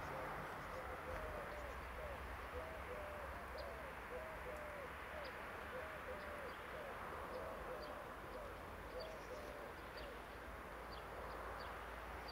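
A bird calling in a long run of short, even hoots at one pitch, about two a second, stopping near the end. Behind it are a low steady rumble of wind and a few faint high chirps.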